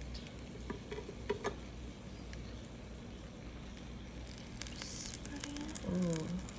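Crackling sizzle of a beef patty cooking in a mini waffle maker, mixed with soft dabbing of a silicone pastry brush spreading melted butter over a bun. The crackle turns dense in the second half, and a brief voiced hum comes near the end.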